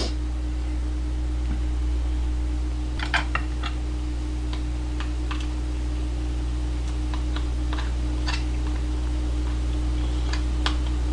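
Metal spoon scraping and tapping against the inside of a soy-marinated crab's shell, scooping the innards into rice: scattered light clicks, a cluster about three seconds in and more later, over a steady low hum.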